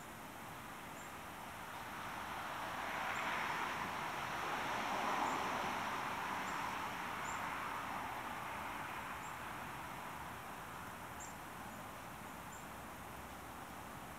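A vehicle passing on a nearby road: its tyre and engine noise swells over a few seconds, peaks about five seconds in, then fades away. Faint, short, high bird call notes come through here and there.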